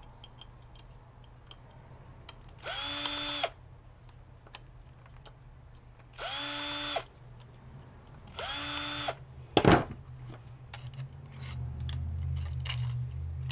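Power drill-driver run in three short bursts, spinning up briefly each time, backing out the last three small screws of a floppy drive. A sharp knock follows just after the third run, and a low hum comes in near the end.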